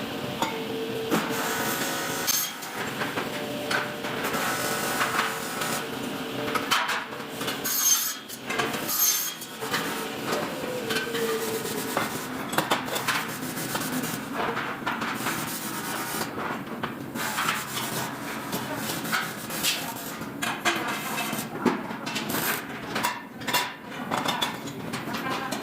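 Workshop tool work on metal: irregular knocks, clanks and scraping or rubbing, with brief ringing tones now and then.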